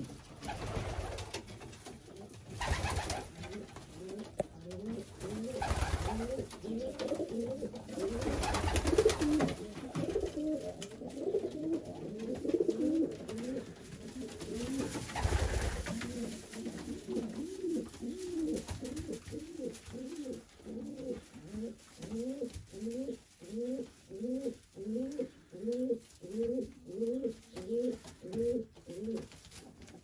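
Racing pigeons cooing, many calls overlapping. In the second half one bird coos in a steady run of rising-and-falling notes, a bit more than one a second. A few short rustling bursts come in the first half.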